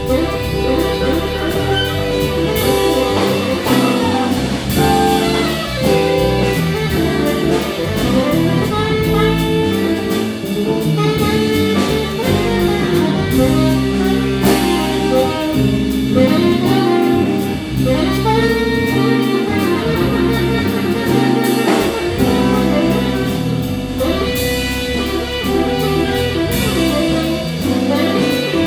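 Live jazz quartet playing a waltz, led by a tenor saxophone playing a melodic line of held and moving notes over a rhythm section with a drum kit keeping steady time.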